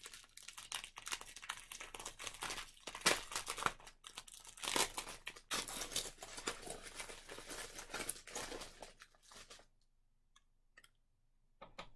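Clear plastic bag crinkling and rustling as it is worked open by hand, with many sharp crackles, stopping about ten seconds in; a few faint clicks follow.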